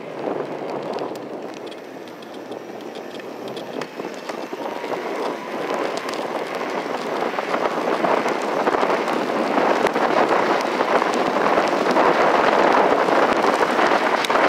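Wind rushing over a phone microphone on a moving electric bike, mixed with tyre noise on pavement. It grows steadily louder as the bike picks up speed.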